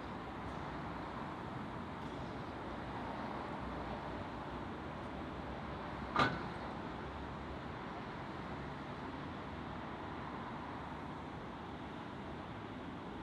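Steady hiss of steam from a standing narrow-gauge steam locomotive, with one sharp knock about six seconds in.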